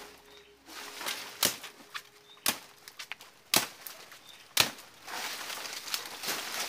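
Machete chopping into the base of a plant stalk: four sharp strokes about a second apart, with lighter cuts and knocks between them.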